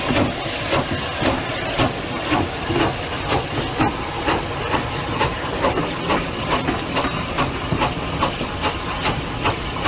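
Southern Railway Q1 0-6-0 steam locomotive working past with a train of coaches: a steady rhythm of exhaust beats, about two to three a second, over a continuous steam hiss.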